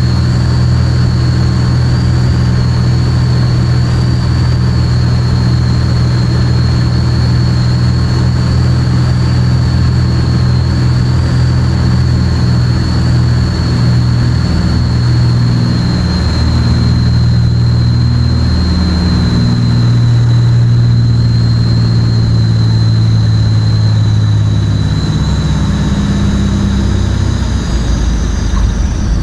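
Light aircraft's propeller engine heard from inside the cockpit during approach and landing, a steady drone with a thin high whine over it. The engine note shifts in pitch through the second half and eases near the end as the plane rolls out on the runway.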